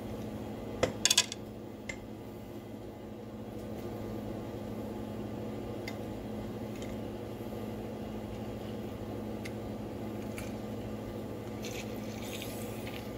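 Kitchen handling sounds at a counter: a quick cluster of sharp clacks about a second in and a few light taps later, over a steady low hum.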